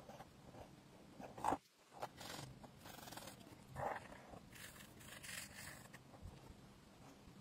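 Felt tip of an acrylic paint marker scratching across paper in short colouring strokes, faint, with two louder strokes about a second and a half in and again near four seconds.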